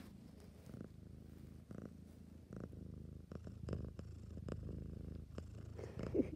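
Domestic cat purring steadily right against the microphone, a continuous low rumble, with scattered short rustling clicks on top.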